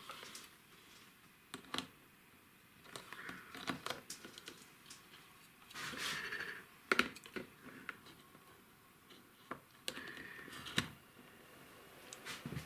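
Battery charger clamps and cables being handled and clipped onto battery terminals: faint scattered clicks and rustling, the sharpest clicks about seven seconds in and again near the end.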